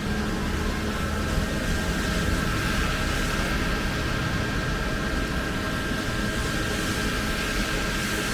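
Heavy rain falling in a steady hiss, with a steady machine hum of several held tones underneath, like air-conditioning units or fans running.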